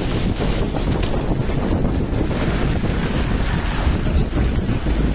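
Heavy wind rush buffeting the microphone of a camera mounted on the outside of a moving Toyota Fortuner, over a steady low rumble from the vehicle on a muddy track. The high hiss thins about four seconds in.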